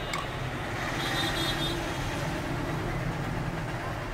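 Steady low background rumble, with a faint click near the start and a faint high tone about a second in.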